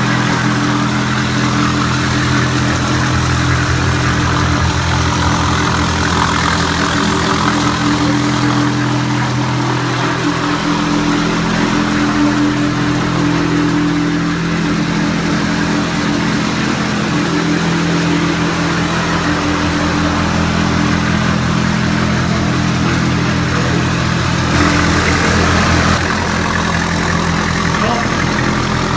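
ROLL-STRIPPER RO-2 self-propelled floor stripper running steadily, its motor humming under a scraping rush as the blade lifts cork granulate underlay off the floor and rolls it up.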